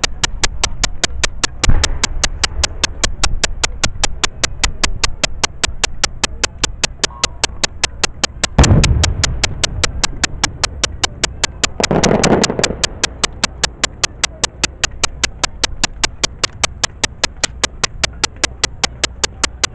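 Fireworks: two deep booms of aerial shells about seven seconds apart, then a second-long rush of noise from the shell bursting about three seconds after the second boom. Throughout, an even mechanical ticking of about four clicks a second.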